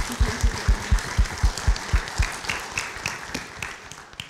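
An audience applauding, with a regular low thud about four times a second that is loudest in the first two seconds. The applause thins and dies away near the end.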